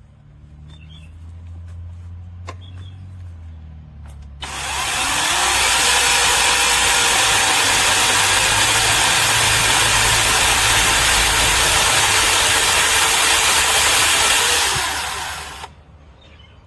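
SEESII 40V brushless cordless electric chainsaw starting abruptly about four seconds in and cutting through wood for about eleven seconds, a steady motor whine under the chain noise, then winding down near the end.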